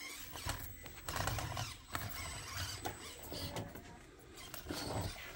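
Axial SCX24 1/24-scale RC crawler's small electric motor and gearbox whirring in stop-start bursts as it climbs, with the plastic sheeting of the course crinkling under its tyres.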